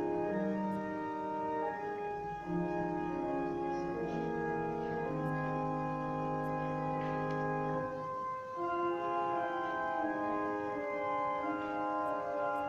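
Pipe organ playing slow, sustained chords that change every second or two, with a deep pedal note held from about two seconds in until about eight seconds in.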